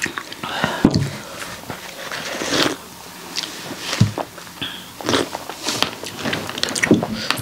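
Breath hissed in and out through the mouth, with mouth noises and scattered clicks and a few low knocks, from a person reacting to the burn of a super-hot chili chip.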